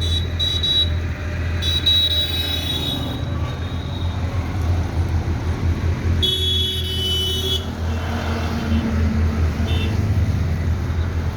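A heavy engine runs steadily with a low drone. High-pitched, horn-like tones sound on and off: near the start, about two seconds in, and again for about a second and a half from six seconds in.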